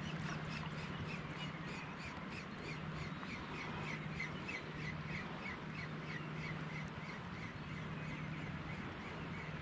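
Ryobi Maturity 3000 spinning reel being cranked to retrieve a lure: a low steady whir that stops briefly a few times between turns, with a rapid ticking about four times a second.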